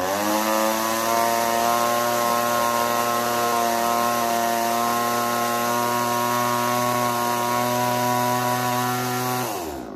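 Echo CS3000 two-stroke chainsaw engine driving a Versa Tool water pump attachment. It revs up at the start, holds a steady high speed, then winds down and stops right at the end. The pump is running without picking up water.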